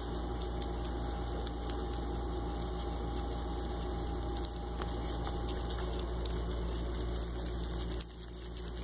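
Baby rabbits nibbling and chewing salad greens: faint crisp clicks and crunches over a steady low hum, getting busier and louder near the end.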